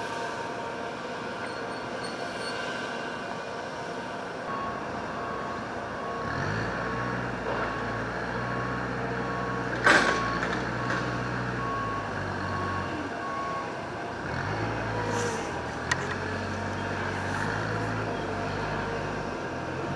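Adelaide Metro 4000 series electric train approaching the station, its running gear making a steady low hum. An electronic beep repeats about one and a half times a second through the first half, and there is one sharp knock about halfway.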